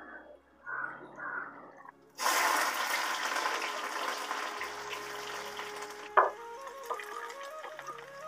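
Hot oil in a kadai sizzling as spices and red chillies go in for the tadka, starting suddenly about two seconds in, loudest at first and then settling to a steadier, quieter sizzle.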